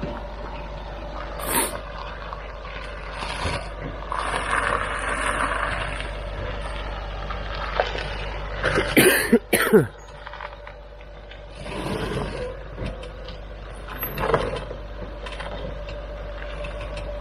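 Range Rover L322's 3.6 TDV8 diesel engine running slowly as the vehicle crawls down a sandstone rock step, with scattered scrapes and knocks from tyres and body on the rock. There is a brief louder burst about halfway through.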